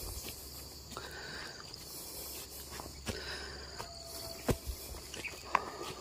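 A steady high insect drone, with a few sharp crunches and knocks in dry leaf litter from the second half onward as fallen durians are picked up off the forest floor.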